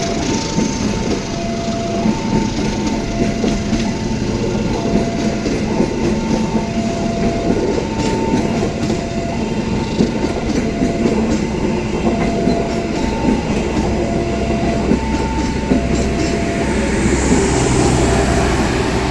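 Argo Muria passenger train passing over the rails with wheel clatter, while a level-crossing warning alarm sounds a two-tone signal, a higher and a lower tone taking turns. Near the end the alarm stops.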